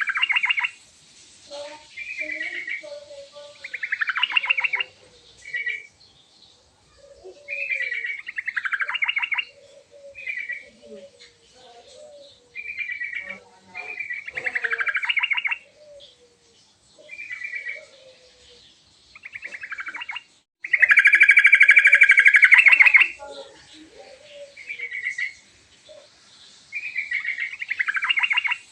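Yellow-vented bulbul (trucukan) singing in full voice: short, rapid, bubbly phrases repeated every second or two, with softer low notes between them. One louder, longer phrase comes about three-quarters of the way through.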